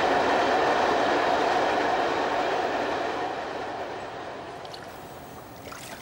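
A train running over a railway bridge: a steady rumble that fades away over the last few seconds as it passes.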